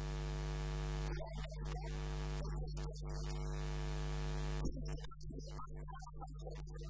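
Steady electrical mains hum from the microphone and loudspeaker system, under a man's amplified voice. The voice holds long, drawn-out tones for the first four seconds or so, then breaks into choppier speech.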